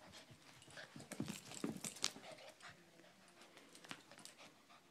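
Boston Terrier puppy scampering about: a scatter of faint, irregular taps and scuffs from her paws on the floor.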